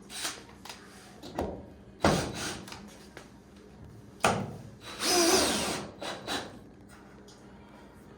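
Sharp knocks and clicks of hand work on the car, with a power drill or driver running in one short burst of under a second about five seconds in.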